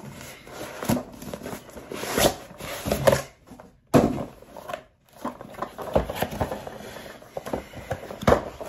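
A box of fishing-line spools being pulled out and handled: irregular rustling and scraping with a few sharp knocks.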